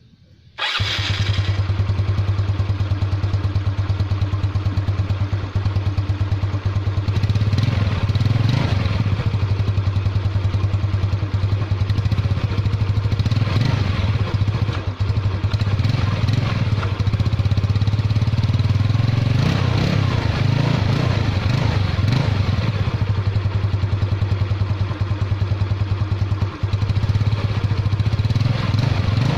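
Yamaha Mio Sporty scooter's single-cylinder four-stroke engine running through an Exos X-6 aftermarket exhaust pipe: it comes in abruptly near the start with a steady idle putter, then is revved up and down a few times.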